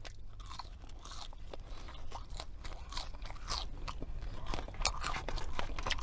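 A person chewing crunchy food close to the microphone: a steady run of sharp crunches and bites.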